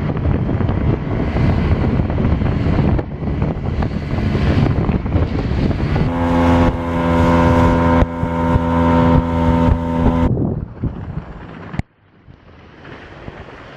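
Boat motor running underway, with wind buffeting the microphone. A steady engine tone stands out for a few seconds midway, then the sound drops off abruptly near the end, leaving something much quieter.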